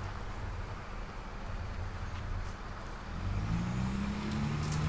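Motor vehicle engine running, a low rumble; about three seconds in, a louder engine note rises in pitch and then holds steady.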